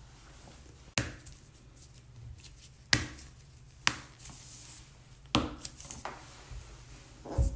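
Joint cracks during chiropractic adjustments: about five sharp pops a second or two apart, the last one a duller, heavier thump near the end.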